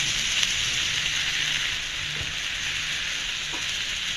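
Raw minced meat, sliced onions and tofu sizzling steadily in hot oil in a frying pan, just after the meat has gone in.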